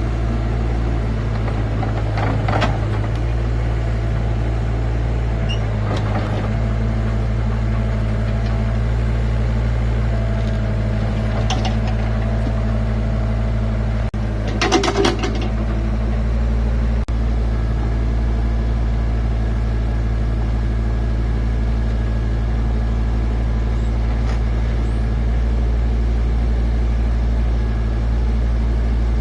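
Engine running steadily at an even speed, with a few short metallic clanks and a louder brief rattle about halfway through.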